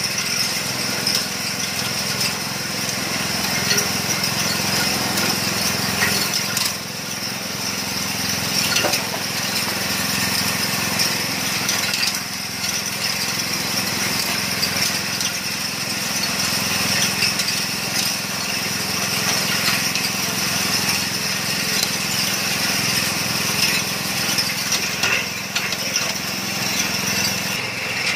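Portable organic-waste shredder running on its small engine: a steady drone with a high whine, and scattered clinks and rattles as material is fed in and chopped.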